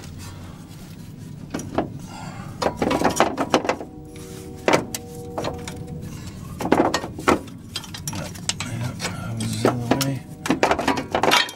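Metal clanks and knocks of a car's front suspension parts, the upper control arm (wishbone) and strut knuckle, being wiggled and worked apart where they are snug and caught. A steady ringing tone sounds for a couple of seconds about four seconds in.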